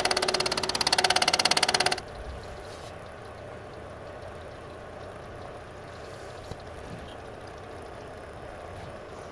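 A loud, fast pulsing sound for about the first two seconds, stopping abruptly. After it, a milling machine runs steadily as its cutter mills gear teeth into a steel shaft held in a dividing head, with coolant flowing over the cut.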